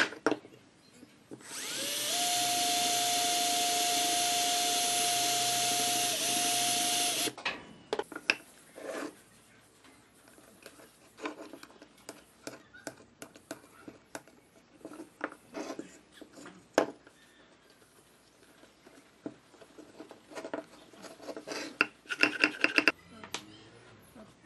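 Cordless drill motor running steadily for about five seconds at one held pitch, dipping briefly near the end before it stops. Light knocks and rubbing of pine pieces being handled follow, with a quick run of clicks near the end.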